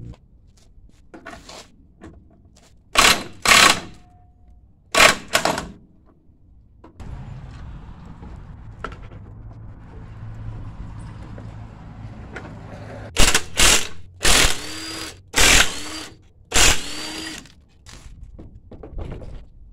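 Power impact wrench on the torque converter's bolt of a 224cc Predator engine, fired in about nine short bursts: two pairs in the first few seconds, then a run of five more about halfway through, some with a brief motor whine.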